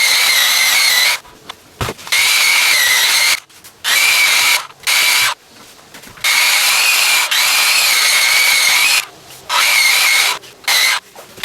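Makita drum sander running in repeated short bursts, its motor whining at a steady high pitch and stopping in between, about eight times over the stretch.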